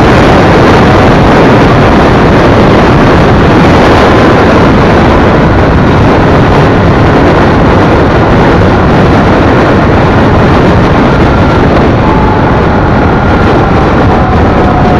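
Honda Shadow V-twin cruiser motorcycle under way: loud, steady wind rush on the microphone mixed with engine and road noise. A faint tone glides slowly down over the last few seconds.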